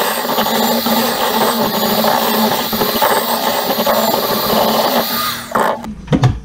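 Electric hand mixer running steadily, its beaters churning a thick cream-cheese and smoked-salmon mixture in a glass bowl. The motor cuts off about five and a half seconds in, followed by a couple of sharp knocks.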